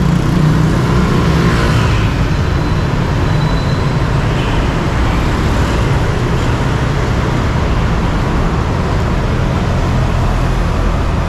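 Steady city road traffic: a continuous low rumble of vehicle engines and tyres on the street.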